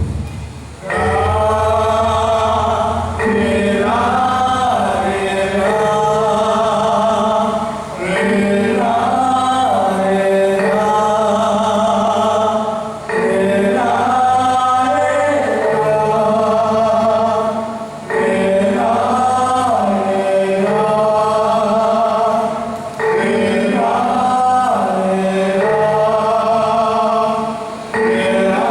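Dance accompaniment music with a group of voices singing together in phrases about five seconds long, each followed by a brief break.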